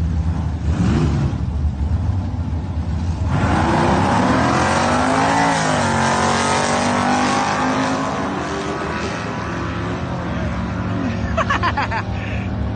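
Drag-racing car's engine idling, then launching hard about three seconds in. The revs climb steeply and dip once in a gear change, then keep rising more slowly as the car runs down the strip.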